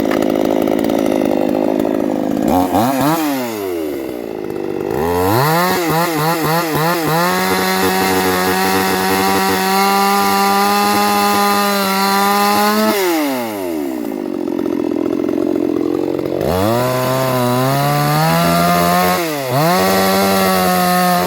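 Two-stroke chainsaw engine idling and being revved up several times. There is a brief rev about three seconds in, then a long stretch held at high revs that drops back to idle, and near the end it is revved again with a short dip.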